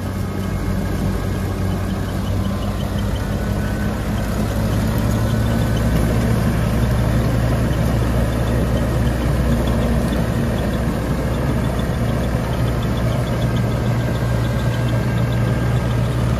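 John Deere 5210 Gear Pro tractor's diesel engine running steadily under load as it drives a straw reaper through the field, the reaper's cutting and threshing machinery whirring along with it. The sound gets a little louder about five seconds in.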